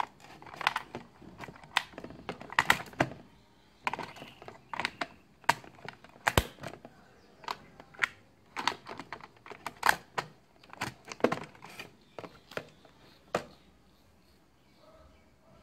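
Three AAA batteries being pushed into the plastic battery compartment of a toy drone's remote control: a run of sharp clicks and clatters as the cells knock against the spring contacts and plastic case. The clicks stop about two seconds before the end.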